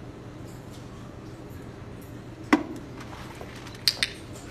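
A few sharp clicks over a steady low hum: one louder knock about halfway through and a quick double click near the end.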